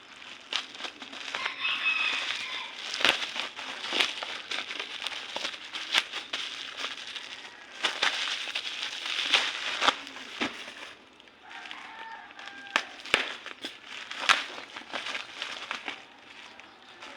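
Packaging crinkling and rustling as it is handled and torn open, with frequent sharp crackles and clicks.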